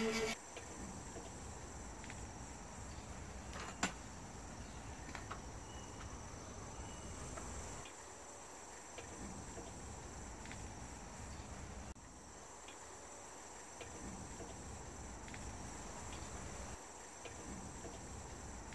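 Crickets chirping steadily and faintly in a garden, over a low outdoor rumble, with a single sharp click about four seconds in.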